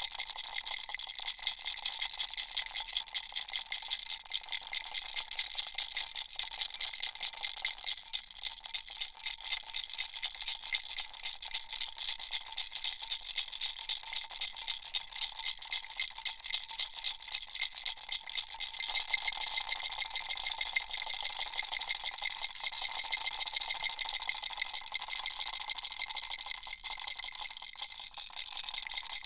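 Baby rattle shaken continuously: a dense, rapid rattle of small pieces with a faint ringing tone underneath.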